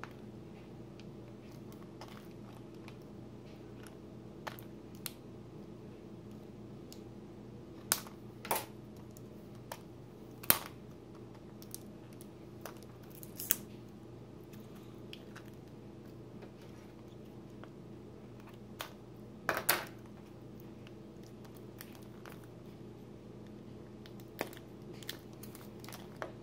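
Scissors snipping and plastic wrap crinkling and tearing as a wrapped plastic toy egg is cut open and unwrapped, in scattered sharp snips and clicks. A steady low hum runs underneath.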